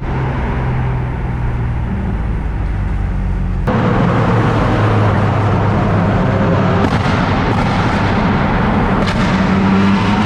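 BMW M car's straight-six engine running steadily while driving, with tyre and road noise on a wet road. About four seconds in it cuts abruptly to a louder stretch of the same engine drone.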